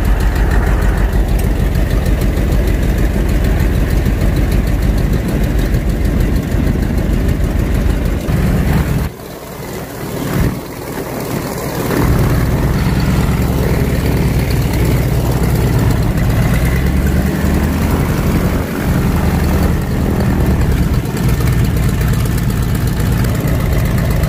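Boeing Stearman biplane's radial engine running at low power on the ground, a steady deep drone heard from the open cockpit. The level dips about nine seconds in and comes back about three seconds later.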